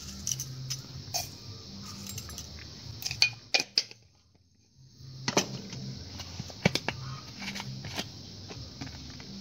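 Scattered light clinks and taps of utensils against bowls and dishes while the snake meat is seasoned, with a brief gap near the middle.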